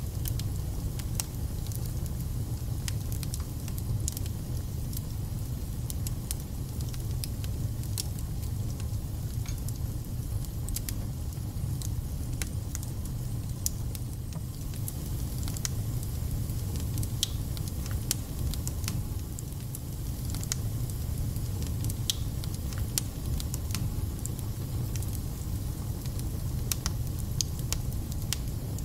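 Wood fire burning in a fireplace: a steady low rumble with frequent, irregular sharp crackles and spits.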